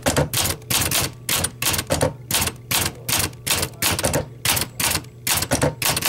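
Olympia SM9 manual portable typewriter being typed one-handed: its type bars strike the paper on the platen in an even run of sharp clacks, about three a second.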